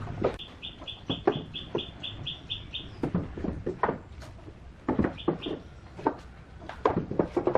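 A small bird chirping a quick run of short high notes, about four a second, then a brief second run a few seconds later, over scattered sharp knocks and clatter.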